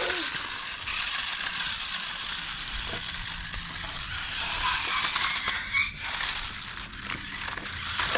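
Toy remote-control cars driving over rough ground, a steady rattling, crackling noise of small motors and plastic bodies bouncing along.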